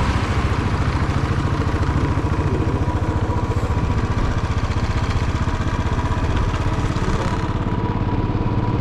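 Motorcycle engine running steadily with an even, pulsing beat as the bike is ridden slowly along a road.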